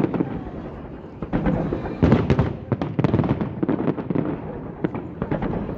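Fireworks salute shells bursting in a rapid series of sharp bangs and crackles, in clusters, the loudest about two seconds in.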